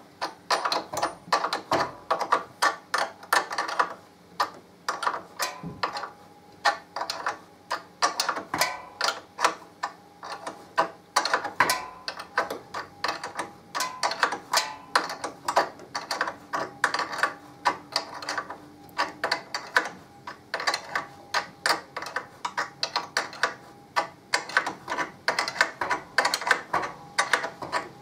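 Ratcheting spanner clicking as it is swung back and forth, winding the swingarm mount bolts in: rapid runs of sharp clicks with short pauses between strokes.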